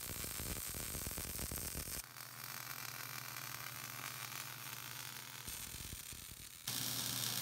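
Lincoln Electric Power MIG welder's arc crackling steadily as beads are laid on a steel car frame during final welding. The sound changes abruptly a few times as separate short weld runs follow one another, with a low hum underneath in parts.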